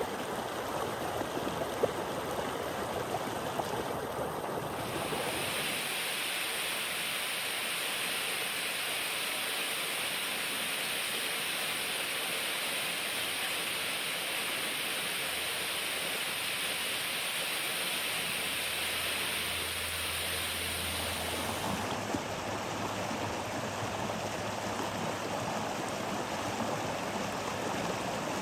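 Running water rushing steadily. About five seconds in it shifts to a higher, brighter hiss, and about 22 seconds in it returns to a fuller, deeper rush.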